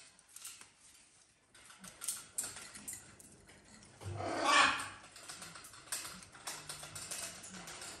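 A caique pecking and chewing at a small plastic toy, giving scattered light clicks and ticks, with one loud, harsh squawk lasting nearly a second about four seconds in.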